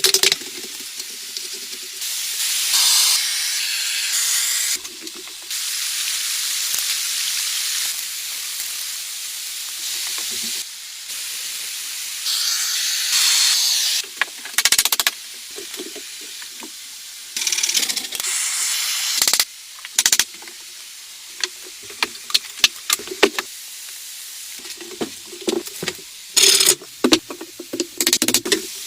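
Hissing noise in blocks that start and stop abruptly, with many short sharp clicks and knocks, densest in the second half.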